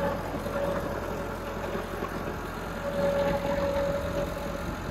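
Massey Ferguson 385 tractor's diesel engine running steadily as the tractor drives across the field, a little louder about three seconds in.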